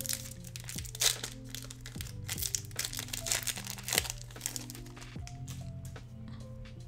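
Foil booster-pack wrapper crinkling as it is torn open, with sharper crackles about a second in and again about four seconds in, over calm background music with held notes.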